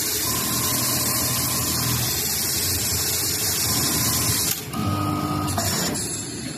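An automatic mop-pad whipping sewing machine with a JUKI sewing head running fast as it stitches around the edge of an oval mop pad. The steady stitching noise stops abruptly about four and a half seconds in, followed by a shorter, different mechanical sound.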